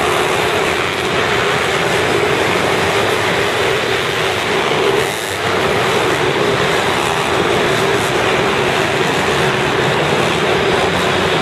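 Several mini motocross bikes' small four-stroke engines running together on the track, a steady, continuous engine sound with a brief dip about halfway through.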